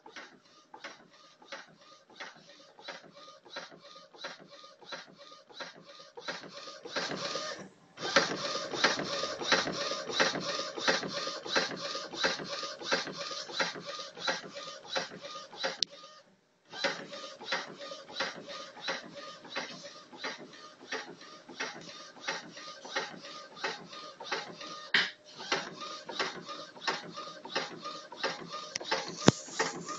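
Epson WorkForce 30 inkjet printer, converted to a flatbed, running a print job: a fast, even train of mechanical clicks from the print-head carriage and feed mechanism. It gets louder after a brief pause and stops briefly once more partway through.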